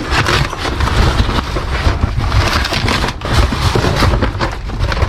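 Rummaging through trash in a dumpster: continuous rustling and crackling of bags and debris over a low rumble.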